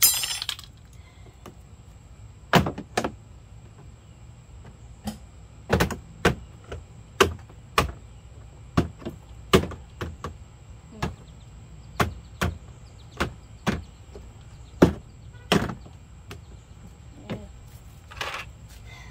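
Hammer blows against the plastic body of a Power Wheels ride-on toy car, about twenty sharp knocks at an uneven pace, with a clatter at the very start.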